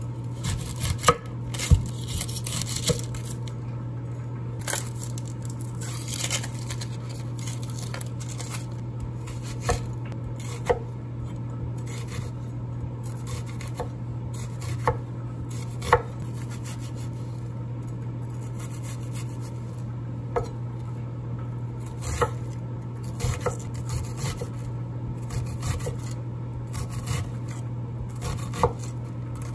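Chef's knife cutting a red onion on a wooden cutting board: irregular knocks of the blade on the board, in bunches near the start and again in the last third, over a steady low hum.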